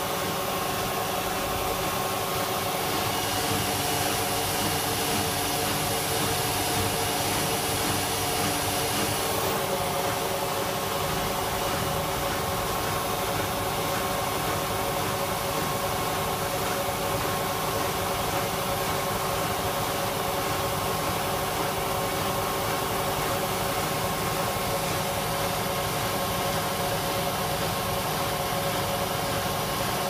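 Hoover WDYN 11746 PG8 washer-dryer spinning empty at 1400 rpm. Its inverter motor, drive belt and drum pulley make a steady whir with a few constant tones.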